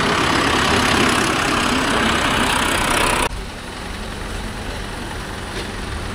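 Mahindra tractor's diesel engine running. The sound drops abruptly about three seconds in to a quieter, steady engine rumble.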